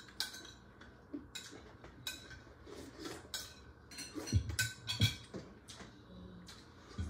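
Spoons and forks clinking and scraping against plates and bowls during a meal, in scattered short clicks, with a couple of heavier knocks about four and five seconds in.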